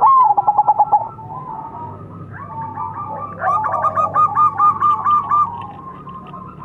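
Zebra dove (perkutut) cooing. The song opens with a loud falling note and then a fast run of staccato coos lasting about a second. From about two seconds in, a longer run of rapid coos follows, layered at slightly different pitches, growing louder and lasting about three seconds.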